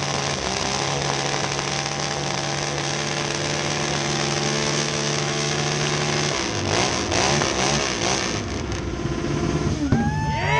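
Motorcycle engine held at high revs during a rear-tyre burnout, a steady, even drone, then revved up and down from about six seconds in.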